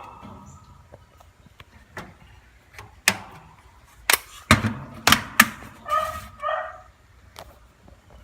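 Sharp knocks and clicks of hand-held tools and equipment being handled, about six spread over several seconds. Two short, high-pitched chirp-like sounds follow near the end.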